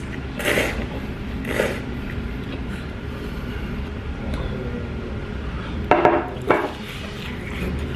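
A person slurping ramen noodles, two short slurps in the first two seconds. Then soft eating and handling of a small plate and chopsticks, and two short loud sounds about six seconds in as he bites into a piece of karaage fried chicken.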